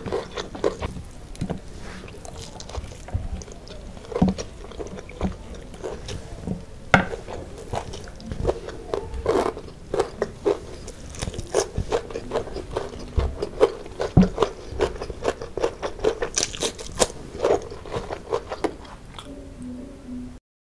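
Close-up eating sounds: crunching bites and chewing of crispy galangal-crumb fried chicken and a fresh cucumber slice, with fingers scraping crumbs across the tray.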